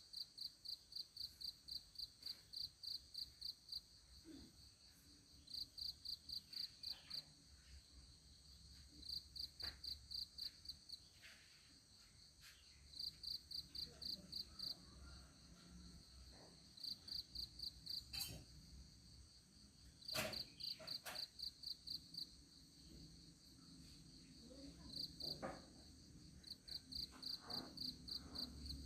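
Insect chirping: trains of rapid, high-pitched pulses, about five a second, each train lasting a second or two and recurring every few seconds. A few faint clicks and taps fall between the trains.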